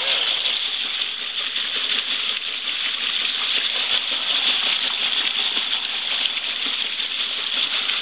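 Water rushing steadily into the tub of a 1954 Frigidaire washing machine as it fills, a constant hissing splash.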